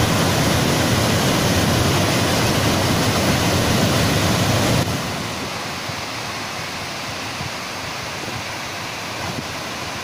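Steady rushing of muddy floodwater pouring through a river dam's open spillway gates, the river in heavy flood. The rush drops to a lower level about five seconds in.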